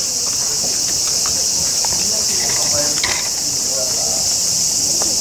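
Steady, high-pitched chorus of summer insects.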